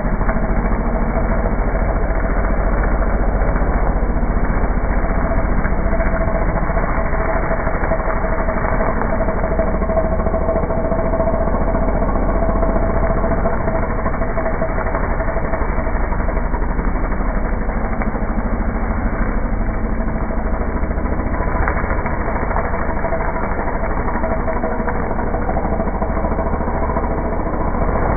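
Petrol brushcutter running steadily at high speed while cutting tall grass, a constant high engine whine.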